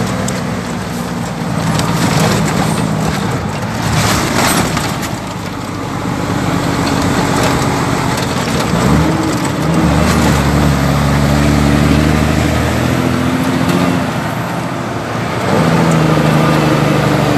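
Heavy diesel truck running under load on a rough dirt road, heard from inside the cab, with the cab and body rattling and knocking over the ruts. The engine note comes up strongly about nine seconds in and again near the end.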